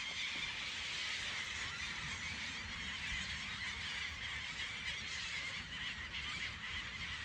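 A large flock of gulls calling all at once: many overlapping cries blend into a steady, unbroken din.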